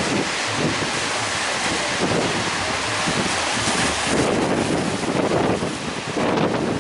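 Large ocean waves breaking and rushing on the shore, with wind buffeting the microphone in uneven gusts.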